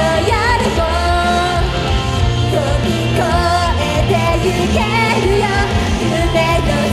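Female idol-group vocals singing live into microphones over loud pop-rock accompaniment.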